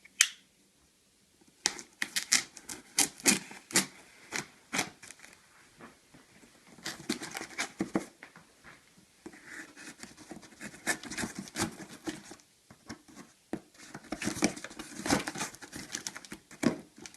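A mail package being opened by hand: a sharp click at the start, then many quick scratches, rips and rustles of packaging, coming in clusters.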